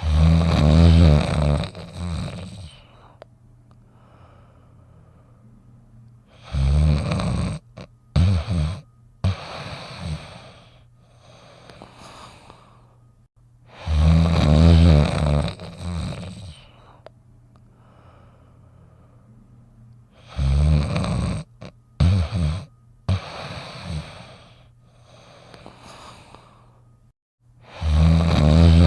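A sleeping dog snoring in a slow, regular cycle: a long loud snore about every seven seconds, each followed by a few shorter breaths, with quieter breathing between.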